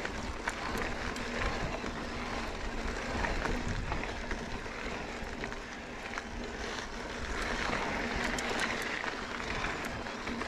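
Mountain bike climbing a dirt and gravel singletrack: tyres crunching over grit, with scattered small clicks and rattles from stones and the bike, over a steady noise and a faint low hum.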